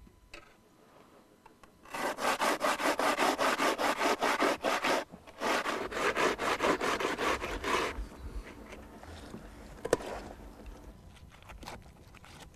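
Raw potatoes being grated by hand on a grater for starch-making: quick rasping strokes, about five a second, in two runs of about three seconds each. Then fainter scraping with one sharp knock about ten seconds in.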